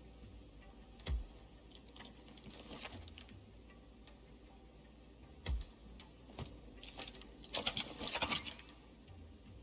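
Small hard objects being handled: a few sharp clicks, then a burst of clattering and rattling near the end with a short rising squeak.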